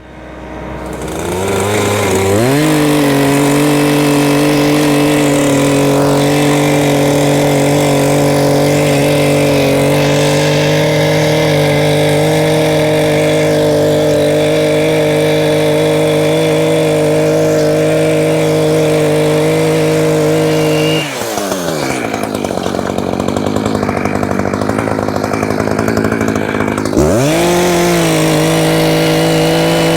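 Two-stroke chainsaw revving up about two seconds in and running at high, steady speed, cutting a wooden joist into sections. About two-thirds of the way through the engine note drops away, then near the end it revs back up.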